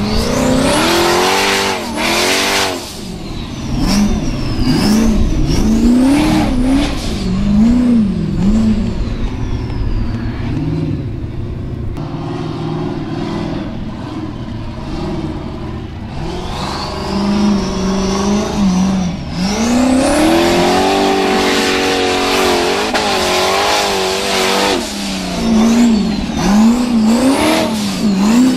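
Formula Offroad buggy's engine revving hard under load on steep dirt climbs, the pitch rising and falling again and again in quick blips. About two-thirds of the way through comes one long held high rev.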